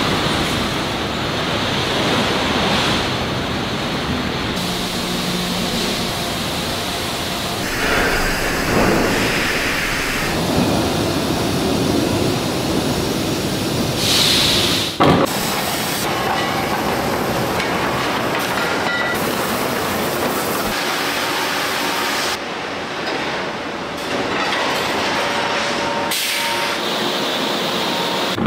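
Steel mill machinery running: a steady heavy rumble and clatter of steel being handled and hot-rolled, changing abruptly several times, with a sharp knock about halfway through.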